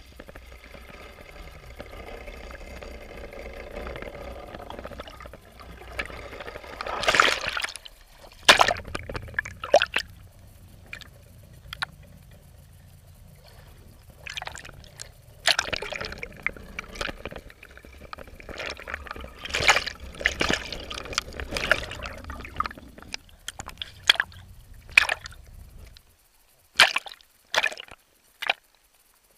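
Water sloshing, gurgling and splashing around a jet ski's hull and a half-submerged camera as the lens dips in and out of the water, with loud sudden splashes several times. A low steady rumble underneath stops about three seconds before the end, and a few last splashes follow.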